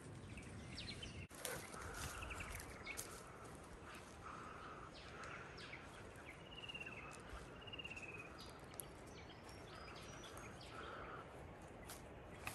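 Several wild birds calling and chirping over a low rumble of wind, with a repeated mid-pitched call and two short high trills about halfway through.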